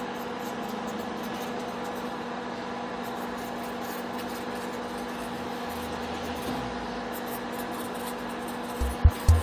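A steady hum with a few fixed tones, like a fan or appliance running. Music with a heavy low beat comes in near the end.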